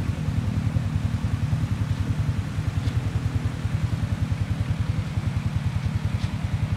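ATV engine running near idle with a fast, even low putter, over the faint rush of a shallow river.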